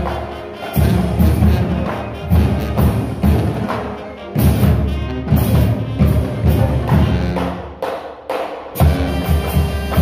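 High school marching band playing: brass and flutes over drums and cymbals, with a loud, steady beat. The band breaks off briefly about eight seconds in, then comes back in.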